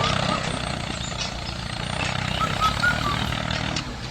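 Tractor engine running steadily at an even pitch, with a few short faint high chirps in the middle.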